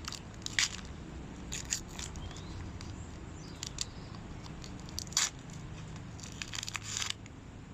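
Football card packet wrapper being torn open and crinkled in a series of short crackling rips and rustles, over a steady low drone.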